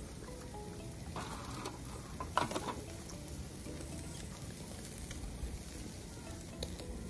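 Meat sizzling on a barbecue grill, a steady crackle, with a few brief knocks and scrapes about one to three seconds in.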